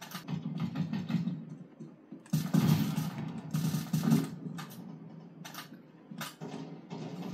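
Compact mechanical keyboard keys clacking in rapid, uneven bursts during fast game play, mixed with first-person-shooter game sound from speakers. The loudest burst comes about two and a half seconds in, and the clicks grow sparser later.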